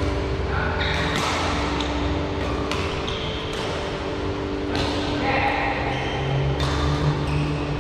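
Badminton rally echoing in a large sports hall: several sharp racket hits on the shuttlecock a second or two apart, with short high squeaks of shoes on the court floor, over a steady background hum.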